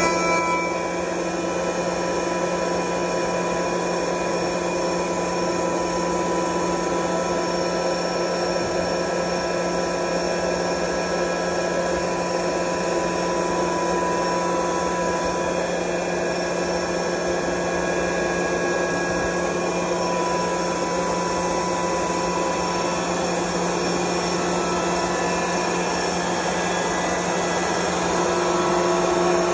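Curtis rotary screw air compressor, belt-driven by a 25 hp 480-volt electric motor, running steadily just after start-up: a steady mechanical hum and whine, a little louder near the end.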